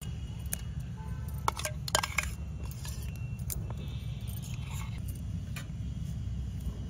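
Light clinks of glass bowls and steel kitchenware, a few single clicks with a quick cluster about two seconds in, over a steady low rumble.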